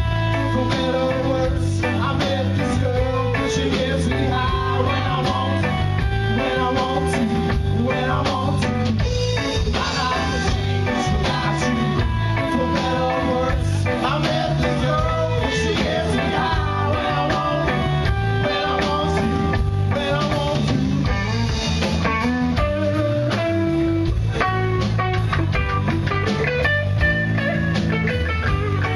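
Live blues-rock band playing: electric guitars over a drum kit, with a man singing.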